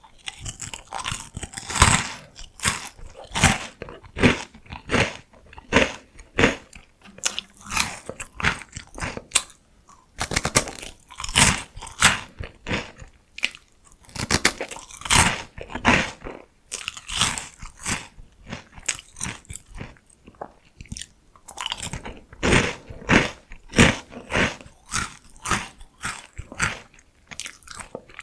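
Someone chewing crunchy salty potato sticks, a quick run of crisp crunches with a couple of short pauses.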